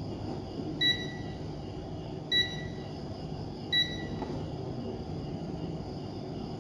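Richmeter digital multimeter beeping three times, short high beeps about a second and a half apart, as the meter is operated by hand and its reading switches to OL. Underneath is a steady low background hum.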